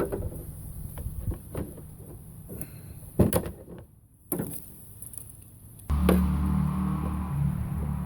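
A few sharp knocks and clanks, the loudest a little over three seconds in. Then a steady low hum starts suddenly about six seconds in.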